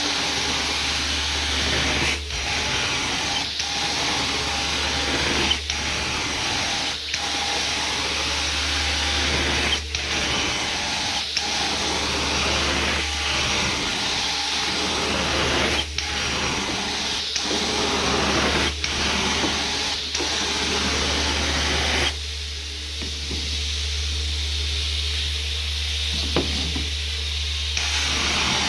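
Carpet-cleaning extraction vacuum running with a steady hiss over a low hum, broken by brief dips about every one and a half seconds as the wand is stroked. The hiss thins out for several seconds near the end.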